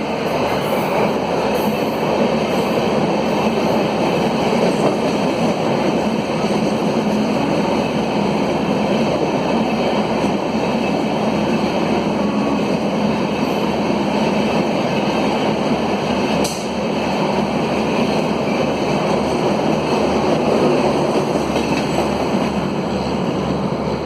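Gatimaan Express train running past on the rails: a steady, loud rush of wheel and rail noise, with a single sharp click about sixteen seconds in.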